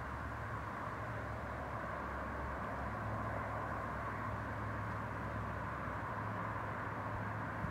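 Steady outdoor background noise: a low hum under an even hiss.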